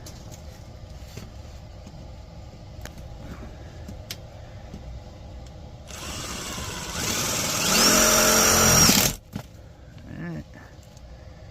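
Cordless drill-driver driving a sheet-metal screw into ductwork: its motor spins up, gets louder and rises in pitch for about three seconds, then stops abruptly. A short, quieter sound follows about a second later.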